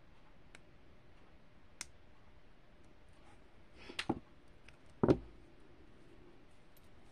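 Faint metal clicks of jewelry pliers working a jump ring. Then a few louder knocks as the two pairs of pliers are put down on the work table, the heaviest about five seconds in.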